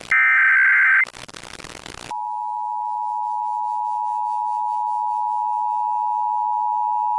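Emergency Alert System broadcast: a loud, roughly one-second burst of warbling SAME header data tones, then about a second of static, then the EAS two-tone attention signal (853 and 960 Hz together) starts about two seconds in and holds steady.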